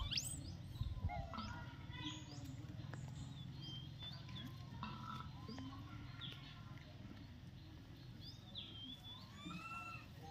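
Birds chirping in short, scattered calls, some sliding up or down in pitch, over a low steady hum.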